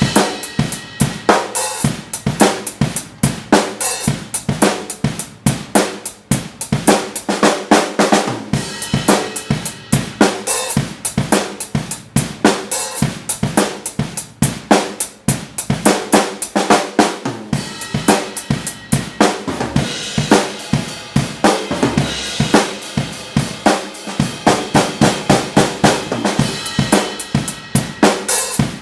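Acoustic drum kit played continuously: snare, bass drum, hi-hat and cymbals in a busy groove, recorded through a Zoom iQ7 microphone plugged into an iPhone.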